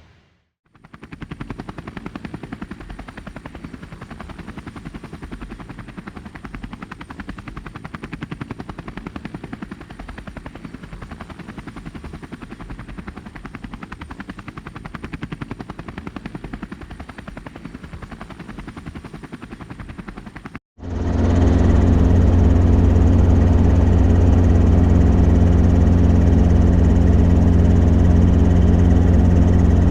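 Robinson R22 Beta II helicopter running, its rotor beating with a fast, even flutter. About twenty seconds in the sound cuts abruptly to a much louder, steady engine and rotor drone with a strong low hum.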